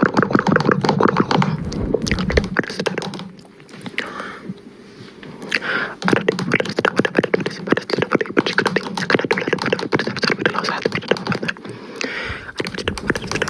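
A person making rapid beatbox-style mouth sound effects close to a microphone: dense clicks and taps with a low hum. It eases off a few seconds in and picks up again around the middle.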